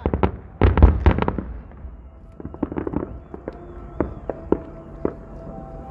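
Aerial fireworks shells bursting: a quick volley of loud bangs in the first second or so, then a scatter of fainter, smaller pops.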